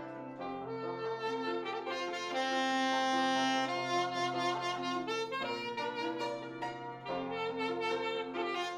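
Taragot, a reedy single-reed folk wind instrument, playing a melody in held notes over low sustained accompanying notes, with one long high note about two and a half seconds in.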